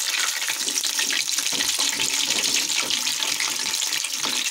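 Potato pakoras in buckwheat-flour batter deep-frying in hot oil in an aluminium kadai: a steady sizzle with constant fine crackling as the pakoras are turned over with a slotted metal spoon.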